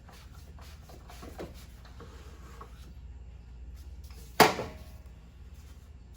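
Hands working in an engine bay: faint clicks and rattles over a low steady hum, then one sharp knock a little over four seconds in.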